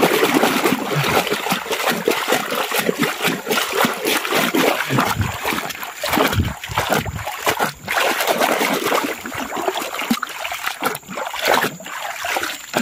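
Water splashing irregularly as a hand swishes a plastic toy bulldozer back and forth through running muddy water, washing thick mud off it.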